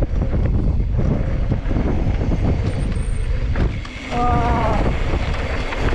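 Wind buffeting the microphone of a mountain bike's onboard camera, over the rumble and rattle of knobby tyres and the bike rolling fast on a dirt trail. About four seconds in, a brief wavering high tone sounds over the noise.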